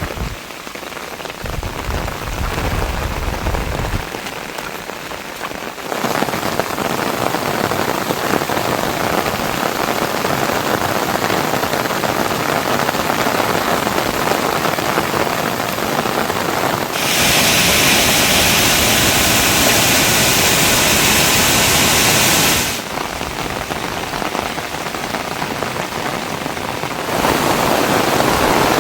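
Heavy rain falling in a steady hiss that shifts abruptly in loudness several times, loudest and brightest for about six seconds in the second half. A brief low rumble sounds a few seconds in.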